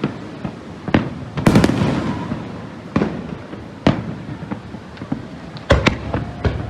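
Aerial fireworks going off: about half a dozen sharp bangs at uneven intervals, some followed by a rolling rumble, with the biggest about a second and a half in and two close together near the end.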